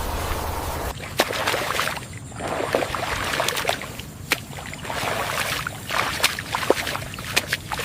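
Water splashing and sloshing in irregular short splashes. It starts about a second in, after a steady hiss with a low rumble cuts off.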